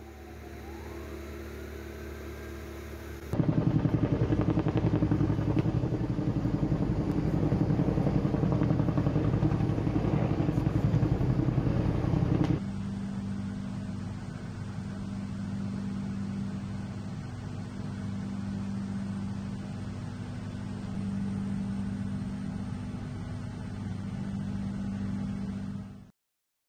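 Aircraft engine noise heard across cuts between clips: a loud, rapidly fluttering stretch from about three to twelve seconds in, then a quieter, steadier hum with a low drone that cuts off just before the end.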